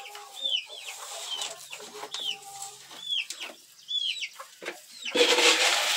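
A flock of chickens clucking and giving many short, high, falling peeps while feeding. Near the end there is a loud rustling burst lasting under a second.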